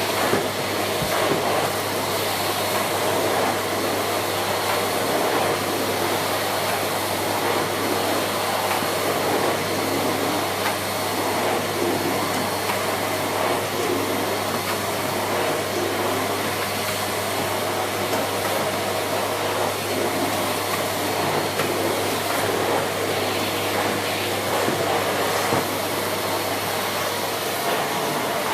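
Siemens Z6.0 Power 2500 W bagged cylinder vacuum cleaner running steadily at its second suction level, with the standard combination floor head being pushed over the floor. The motor gives a continuous rush with a faint high whine.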